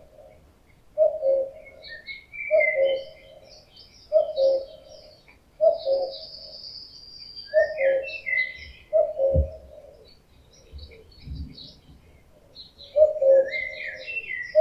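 A male common cuckoo gives its two-note falling "cuck-oo" call, the male's breeding-season call, seven times at intervals of about one to two seconds, with a pause of a few seconds before the last. Smaller songbirds chirp higher up in the background.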